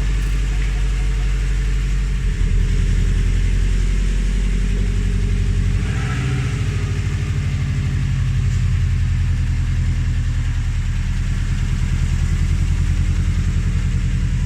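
Subaru WRX's turbocharged flat-four engine idling steadily.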